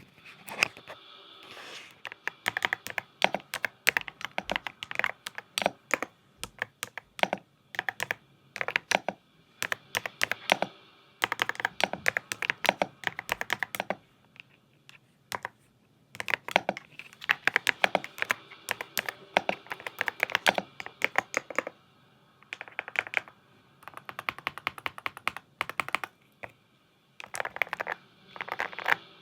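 Typing on a YUNZII Cake mechanical keyboard: quick runs of key clacks lasting a few seconds each, with short pauses in between.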